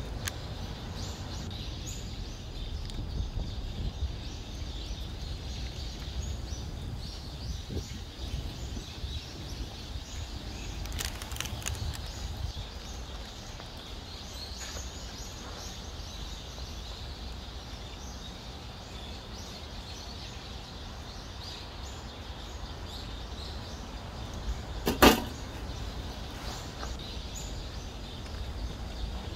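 Outdoor background noise: a steady low rumble with faint high chirps. One sharp knock near the end stands out as the loudest sound.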